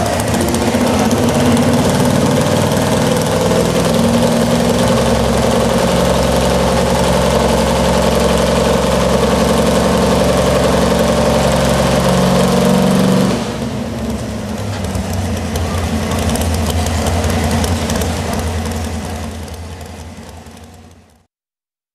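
Modified 4x4 pulling truck's engine running loudly and steadily, then dropping to a lower, quieter idle about 13 seconds in. The sound fades out near the end.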